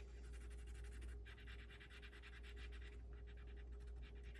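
Faint scratching of a coloured pencil on paper: quick back-and-forth colouring strokes that break off briefly twice, over a low steady hum.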